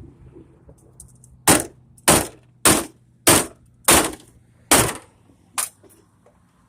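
Six hard blows struck in quick, even succession, about one every 0.6 seconds, then a weaker seventh: something being hit repeatedly while an old CRT television is broken apart to free its copper yoke.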